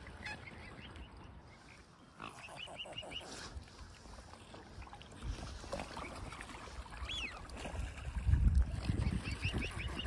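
Waterfowl calling, mute swans, their grey cygnets and mallards among them: short runs of quick, high calls come again and again. A low rumbling noise grows loud near the end.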